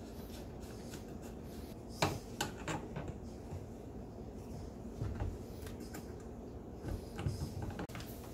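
A few scattered clicks and light knocks from a wrench and a brass hose fitting as a braided stainless steel feed line is tightened onto a dishwasher's water inlet valve, over steady room noise.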